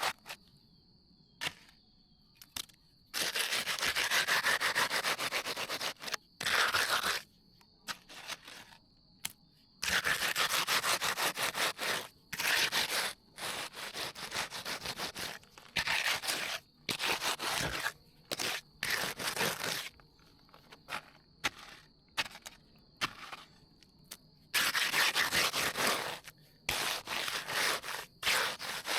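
Hand trowel scraping across freshly poured concrete as it is finished smooth, in repeated gritty strokes of half a second to two seconds with short pauses between. A faint steady high tone runs underneath.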